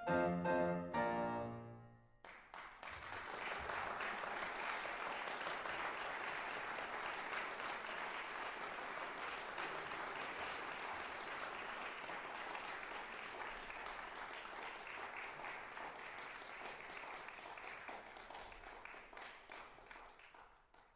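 A piano piece ends with its last few notes, then an audience breaks into steady applause that carries on and tapers off near the end.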